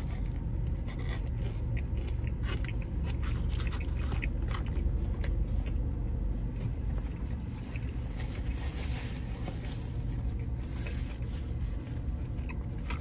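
A person biting into and chewing a saucy fried chicken sandwich close to the microphone: many small wet mouth clicks and crunches throughout, over a steady low rumble.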